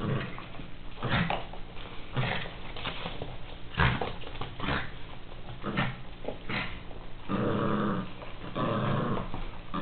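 Miniature pinscher growling while tugging at a toy, in short separate bursts at first and then two longer growls near the end.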